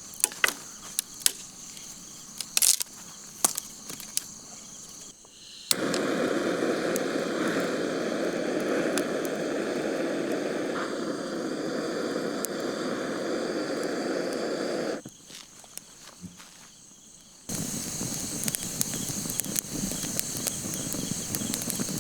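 Sharp cracks and snaps of dry firewood being handled over a steady high trill of crickets. Then a steady rushing noise for about nine seconds, and crickets again near the end.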